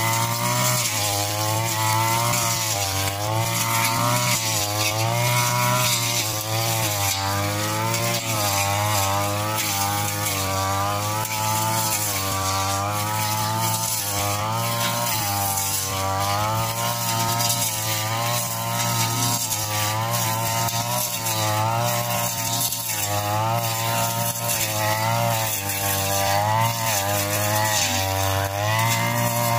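Backpack brush cutter's engine running at high revs while cutting grass, its pitch rising and falling every second or so as the load changes.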